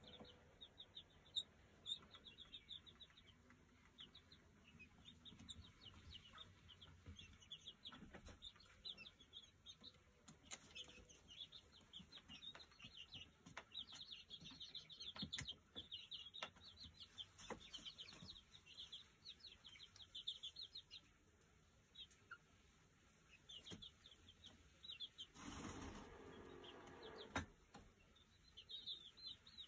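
Young pullets (rescued chickens) peeping faintly in quick high-pitched series, with scattered light clicks and a brief rustling noise near the end.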